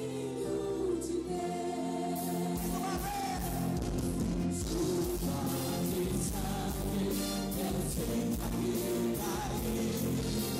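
A live Christian gospel band: several women sing in harmony at microphones over the band. Drums and bass come in about two seconds in, and a steady beat carries on from there.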